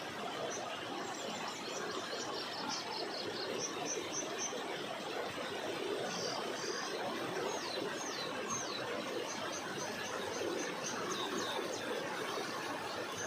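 Steady rush of flowing water, with small birds chirping in quick, repeated high notes over it.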